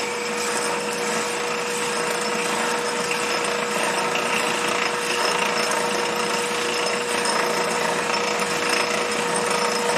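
Lathe running while a twist drill bit in a tailstock drill chuck bores steadily into a spinning wood blank, a continuous cutting noise over a steady whine.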